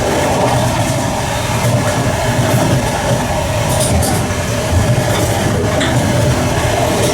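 Passenger train carriage running at speed, heard from the vestibule: a steady, loud rumble and rattle of wheels on rails. A couple of brief sharp clicks come about four seconds and six seconds in.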